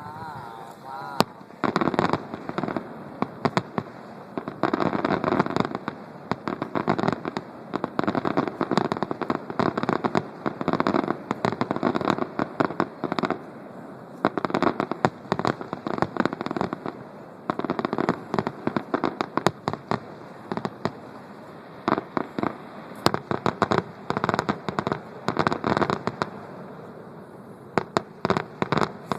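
Fireworks display: rapid bangs and crackling in clusters a second or two long, separated by short lulls, with a warbling whistle in the first second.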